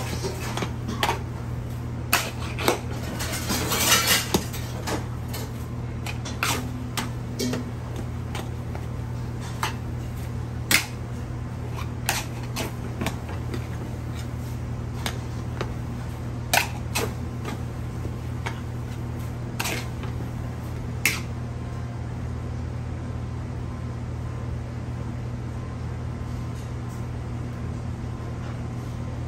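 Metal ladle knocking and scraping against a large metal wok as rice noodles are tossed, in irregular clinks that are busiest in the first few seconds and grow sparse after about twenty seconds. A steady low hum runs underneath.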